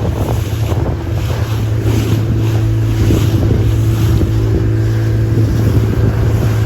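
Motorboat engine running at a steady low hum, with wind buffeting the microphone and the rush of water against the hull.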